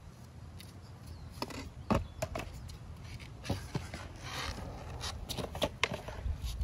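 Footsteps and scattered light clicks and knocks close to the microphone, over a steady low rumble.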